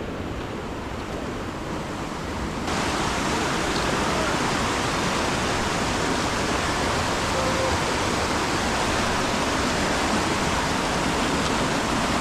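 Steady rush of fast-flowing water, stepping up suddenly louder and hissier about three seconds in.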